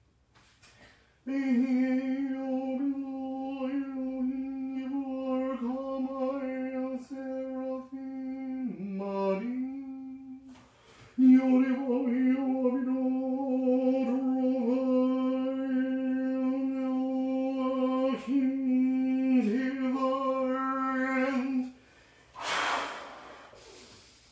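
A man's voice intoning long, steady held tones on one pitch, as divine names are vibrated in ceremonial magic ritual: two long tones with a brief wavering dip in pitch between them. A breath out follows near the end.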